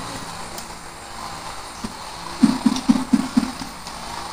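A person eating by hand, with quiet room tone and then a quick run of about six short, low mouth sounds a little past halfway.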